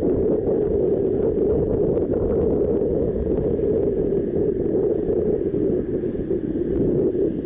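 Car engine idling steadily, heard from a camera mounted on the car itself.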